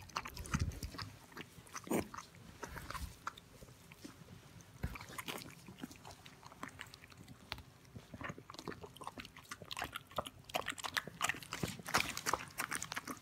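Border collie licking and cleaning her newborn puppy: irregular wet clicking mouth sounds, coming thicker near the end.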